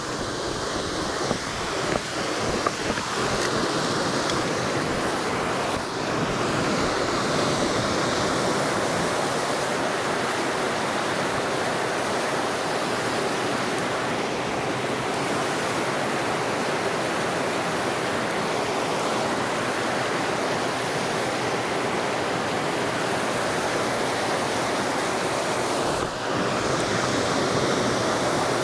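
River rapids rushing over rocks, a steady, even roar of white water. A few brief knocks about two to three seconds in.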